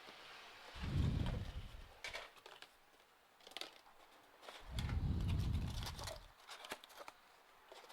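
Hands handling computer parts and their packaging: scattered small clicks and plastic rustles, with two dull low rumbles about a second in and again near the five-second mark.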